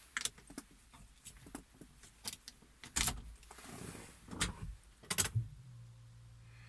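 A run of sharp clicks and knocks in an Opel Antara that won't crank, the sound of keys and switches being worked with no cranking following. About two thirds of the way through a steady low hum starts and keeps going.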